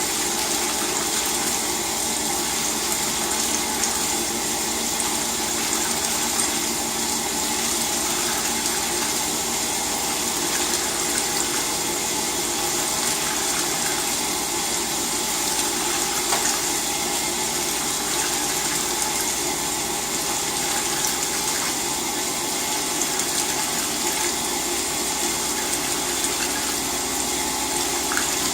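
LG WT-R852 direct-drive washing machine working with water in the tub: a steady rush of water with a faint swell about every two seconds.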